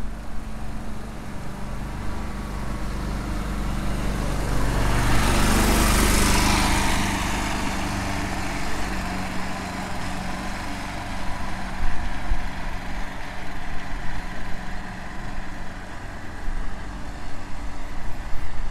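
A motor vehicle passes, rising to its loudest about six seconds in and then fading, over a steady low engine hum.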